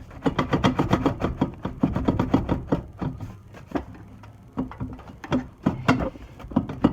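A mallet rapidly tapping on a 2x4 to drive a tight-fitting downpipe into place: quick knocks, several a second, with a lull about three seconds in.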